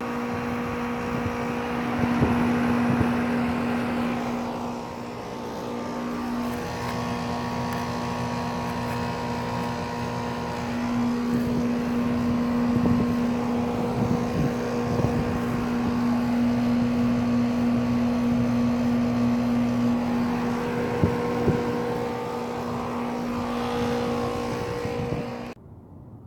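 A 2006 Payne 3-ton central air conditioner running in cooling mode, giving a steady motor hum over an even rushing fan noise. The sound cuts off suddenly near the end.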